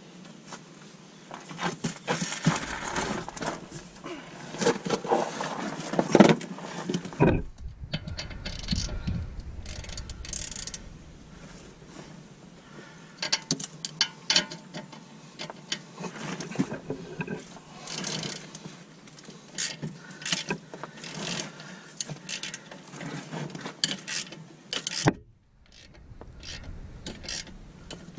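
Hand ratchet with a 15 mm socket clicking in quick runs as it works the rusty sway bar bushing bracket bolts. Scraping and tool-handling noise comes first and is loudest in the first several seconds.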